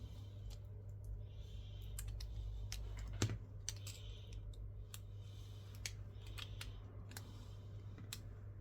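Small metal and plastic parts and hand tools clicking and scraping against a smartphone during a repair, with irregular light clicks and short scrapes and one sharper click about three seconds in, over a steady low hum.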